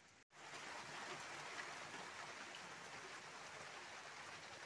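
Steady rain falling, an even hiss that starts after a brief silent gap near the start.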